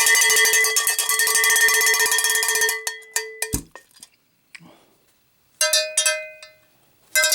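A cowbell struck in a fast run of hits with a metallic ringing tone, stopping abruptly about three and a half seconds in. After a short pause come a few separate strikes near the end.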